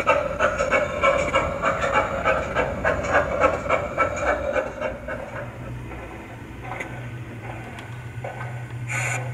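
Recorded steam exhaust chuffs from the Zimo DCC sound decoder of a sound-fitted O gauge GWR 57XX 0-6-0 pannier tank model, about five beats a second, fading over the first five seconds as the loco runs away. A steady low hum follows, with a short hiss near the end.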